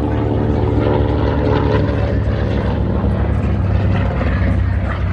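Grumman TBM Avenger's Wright R-2600 twin-row radial engine and propeller in flight, a steady loud drone.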